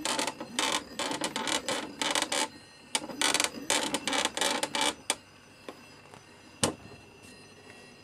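Gotway-clone electric unicycle with a 30B controller, switched on and balancing on the floor: its motor gives irregular rasping, creaking bursts for about five seconds, then settles to a faint steady high whistle with a single click. The noise is the controller whistle.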